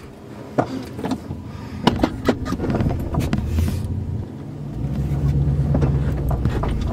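Scattered clicks and knocks in the cab, with a Toyota Tundra's 4.7-litre V8 running underneath; the engine note grows louder and steadier about two-thirds of the way in. The engine has just been fitted with new 12-hole fuel injectors.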